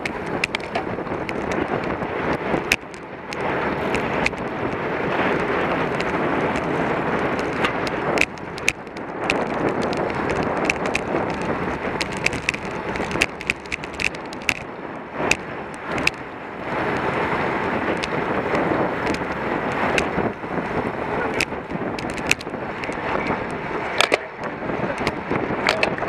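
Wind rushing over the microphone of a camera on a racing bicycle, with tyre and road noise, rising and falling with frequent sharp clicks and rattles.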